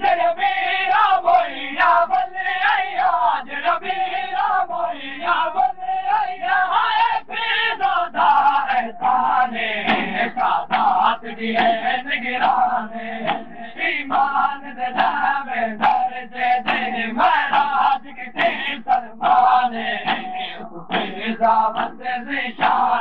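A noha chanted by a male reciter with a crowd of mourners chanting along. Rhythmic hand slaps on chests (matam) keep a steady beat under the voices.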